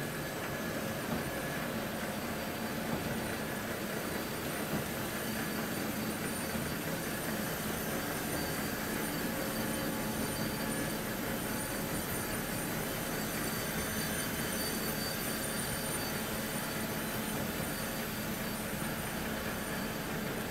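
Steady industrial machinery noise in a factory hall: a constant running hum with a few faint steady whines above it and no starts or stops.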